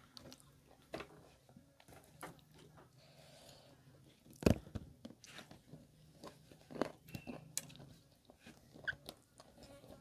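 People chewing and biting food at close range, with scattered short sharp bites and clicks; the loudest bite comes about halfway through, with another strong one a little later.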